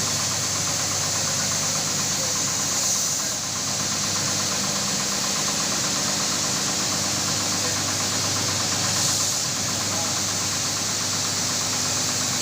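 Electric carpet-washing machine running steadily: a continuous machine drone with a fine, rapid rattle and a steady hiss over it.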